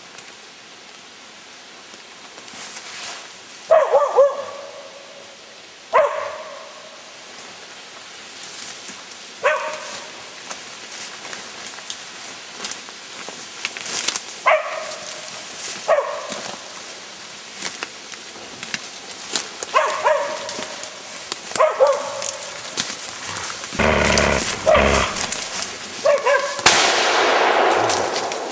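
A hunting dog barking in single and double barks every couple of seconds, the barks coming more often toward the end. Near the end a louder, sustained rushing noise covers the barking.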